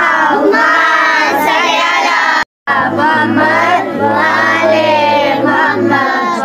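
A child's voice singing in a slow, drawn-out melodic chant with long wavering notes, broken by a brief total silence about two and a half seconds in.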